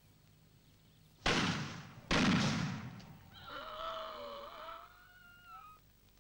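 Two loud shotgun blasts a little under a second apart, each dying away quickly, followed by a long wavering cry lasting over two seconds.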